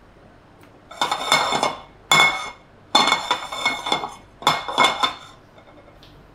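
Frying pan shaken and slid against a gas burner's metal grate to swirl melting butter: four bursts of scraping and rattling with a metallic ring.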